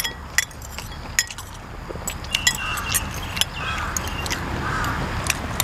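Metal cutlery clinking and tapping against a plate or dish in scattered sharp clicks.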